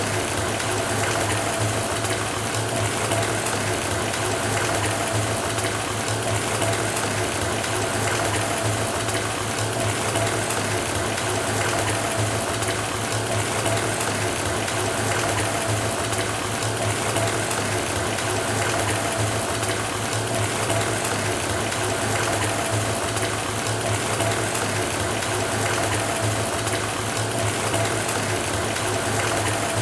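Bathtub faucet running steadily into a filling tub: an even rush of water with a steady low hum under it.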